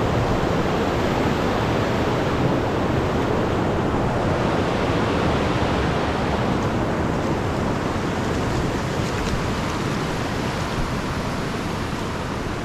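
Ribbon Creek, a snowmelt-fed mountain creek, rushing loudly and steadily over its bed at a crossing; it fades slightly near the end.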